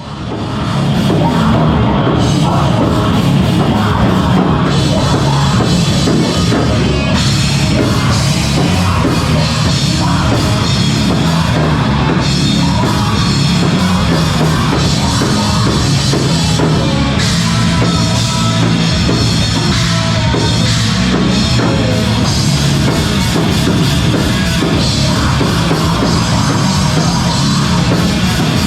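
A rock band playing live and loud: heavy, metal-style music driven by a full drum kit.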